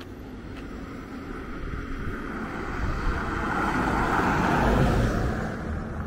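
Toyota Hilux pickup truck driving past on a concrete road: engine and tyre noise build steadily, peak about five seconds in, then fade as it goes by.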